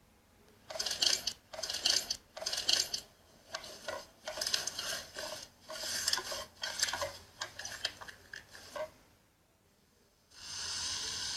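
Slime being squeezed and worked by hand, crackling and clicking in about a dozen short bursts, followed near the end by a steady hiss.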